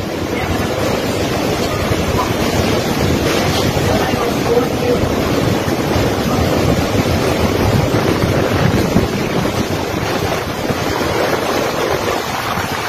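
Typhoon wind and heavy rain blowing steadily, with gusts buffeting the microphone.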